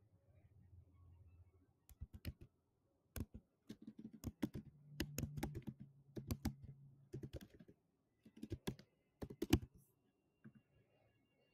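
Typing on a computer keyboard: a run of irregular key clicks that starts about two seconds in and stops near the end.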